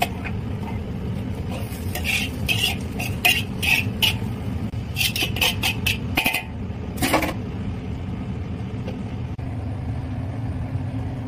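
Metal spatula scraping and clanking against a wok while stir-frying: a run of quick sharp strokes between about two and seven seconds in. A steady low rumble runs underneath throughout.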